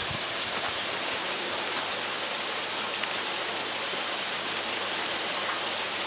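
Small waterfall: a thin stream of water pouring over a rock ledge and splashing below, a steady, even rush.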